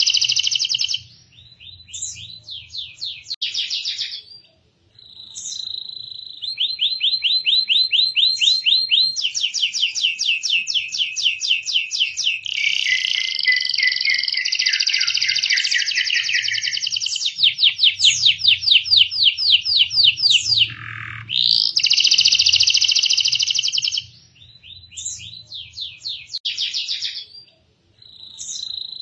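Domestic canary in full song: long runs of rapid, high-pitched rolling trills and fast repeated chirps, changing from one trill type to the next with a few short pauses.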